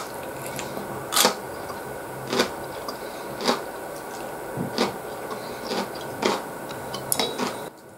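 Chewing crunchy takuan (yellow pickled daikon radish): a sharp crunch about once a second, some eight times.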